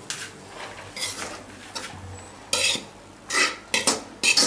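A spoon scraping and scooping in a pot of cooked chicken biryani as it is mixed or served out, in several short scrapes, the loudest in the second half.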